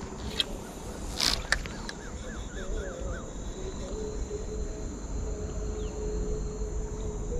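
Outdoor ambience: a steady high insect drone, a bird giving a quick run of about six chirps about two seconds in, and a few sharp clicks in the first second and a half.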